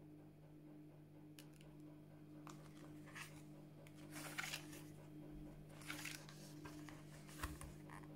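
Soft paper rustles and handling noises as the pages of a small hardback book are turned, several short rustles with the loudest about four seconds in, over a faint steady hum.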